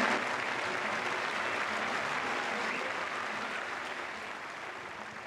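Tennis stadium crowd applauding, the clapping fading away gradually.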